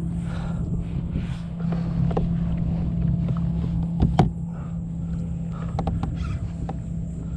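Water sloshing against a fishing kayak's hull as a hooked bull redfish tows it, over steady wind noise, with scattered small clicks and one sharp knock about four seconds in.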